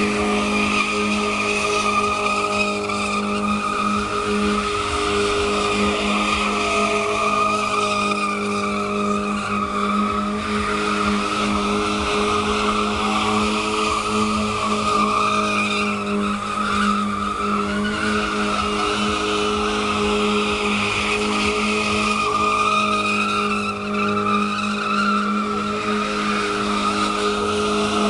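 BMW E30 coupe doing burnout donuts: the engine held at steady high revs while the spinning rear tyres screech without a break.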